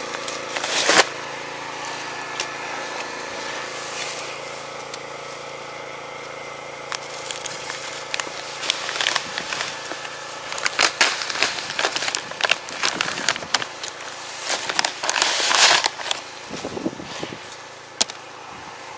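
Fertilizer sacks being handled and cut open with scissors, crinkling and rustling in bursts that are busiest in the second half, over a steady engine hum.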